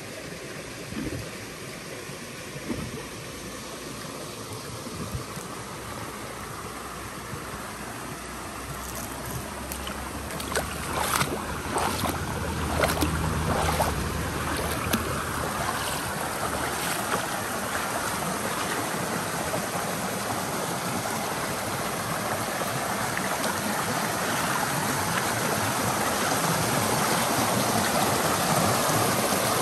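A small stream rushing and splashing over rocks, growing steadily louder, with a few brief knocks or clicks around the middle.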